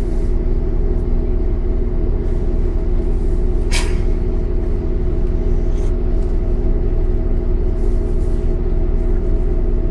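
MAN D0836 six-cylinder diesel engine of a Solaris Urbino 10 II city bus running at a steady idle. About four seconds in there is a short hiss of released compressed air from the bus's air system.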